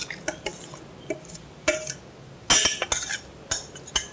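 A spoon stirring and scraping a thick cooked stuffing mixture in a stainless steel saucepan, with scattered clinks against the pan. A louder run of scrapes and knocks comes about two and a half seconds in, and another clatter near the end as the pan is lifted off the hot plate.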